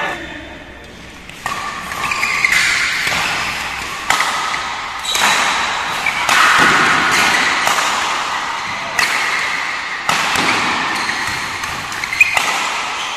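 Badminton doubles rally: rackets strike the shuttlecock with sharp smacks about every second or so, each followed by a short ringing smear.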